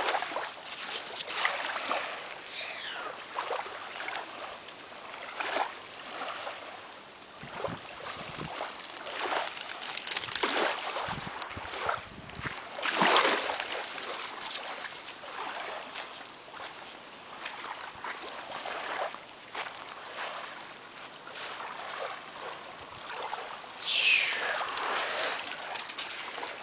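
Small waves lapping and splashing at the water's edge, with irregular splashes as a small dog runs and snaps at the water in the shallows. A short high sound that falls in pitch comes near the end.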